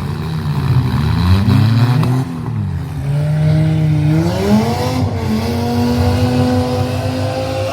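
Several demolition derby cars' engines revving hard, their pitch rising and falling as the cars accelerate, back up and turn; about three seconds in one engine climbs and then holds a high, steady pitch to the end.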